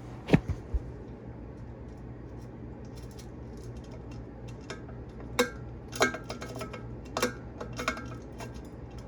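Irregular sharp clicks and light metallic clinks from a ceiling fan's pull chains and fittings being handled, with one loud click near the start, over a steady low hum.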